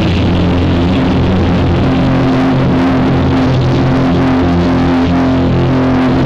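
Live rock band playing an electric guitar solo, recorded through a faulty, overloaded camera microphone that leaves the sound heavily distorted. A long held note comes in about two seconds in.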